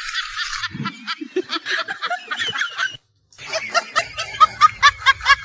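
Snickering laughter in quick, rapid pulses. It breaks off for a moment about three seconds in, then comes back louder.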